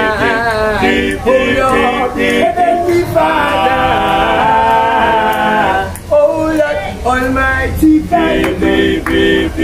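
Group of men singing a cappella in harmony, several voices moving together in chords, with sustained held notes partway through.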